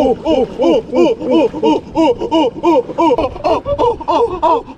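Rapid ape-like hooting calls in imitation of gorillas and orangutans, about three a second, each call rising and falling in pitch.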